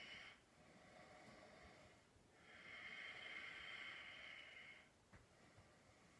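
Faint, slow breathing from a person holding a yoga pose, with one longer breath of about two seconds in the middle; otherwise near silence.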